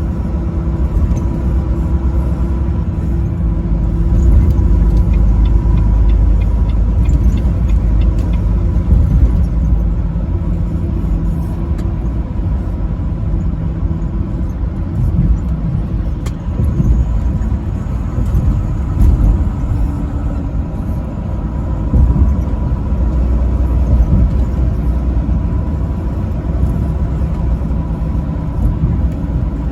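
Semi truck driving at highway speed: a steady diesel engine drone and heavy road rumble, with a thin steady whine underneath.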